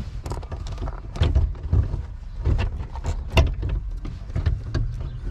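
Irregular clunks, knocks and rattles of the steering column and the metal parts under the dashboard as the column is wiggled to work it loose, over a steady low rumble.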